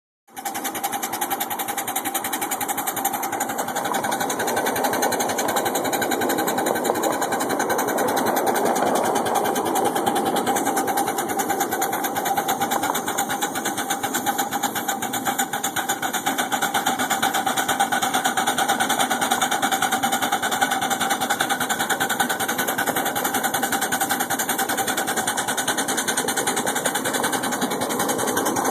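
Ride-on miniature steam locomotive pulling its train along the track: a fast, even mechanical clatter that keeps up without a break.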